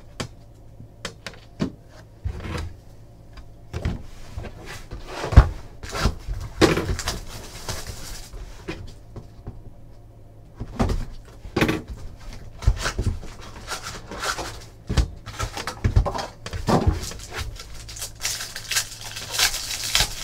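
Trading cards and a cardboard box being handled on a tabletop: irregular taps and knocks as cards are set down and a sealed box is slit open with a box cutter, with foil card packs crinkling near the end.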